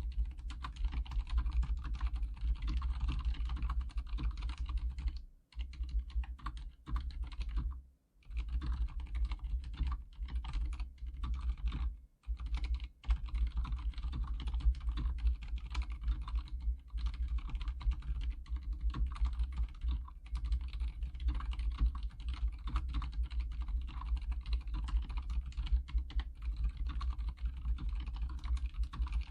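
Typing on an Archon K79 full-size keyboard with silent red switches: a fast, continuous stream of keystrokes, broken by brief pauses about 5, 8 and 12 seconds in.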